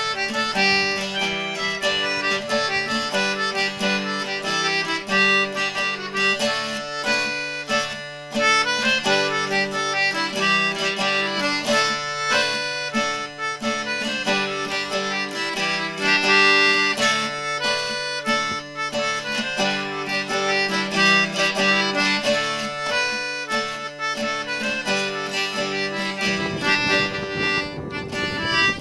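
Instrumental background music with a steady rhythm.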